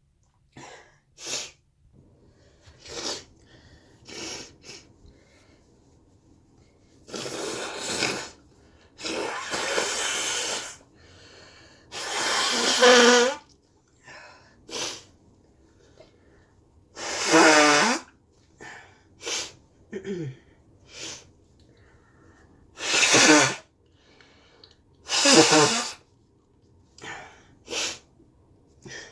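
A person sneezing about four times, each a loud burst with a voiced, falling cry. Between them come short sharp sniffs and breaths, and two longer snotty nasal honks.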